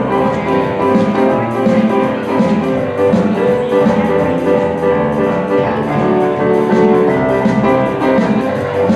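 Church worship music: an electric keyboard playing the instrumental introduction to a congregational song, with a steady beat and no singing yet.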